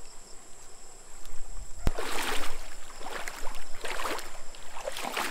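Wading splashes in a shallow, rocky stream: water sloshing in strokes about once a second from about two seconds in, just after a single sharp click.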